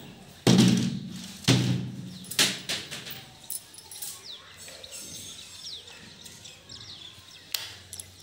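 Two loud thumps about a second apart near the start, then a few softer knocks, with faint bird chirps in the background.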